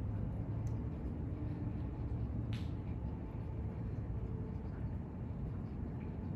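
Steady low rumble of outdoor background noise with a faint hum, and a brief high chirp about two and a half seconds in.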